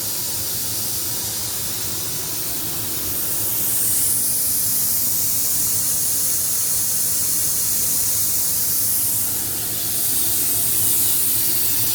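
Compressed air hissing steadily from loose fittings on a pressurized Ingersoll Rand SSR-EP60 rotary screw compressor system, with a low hum underneath.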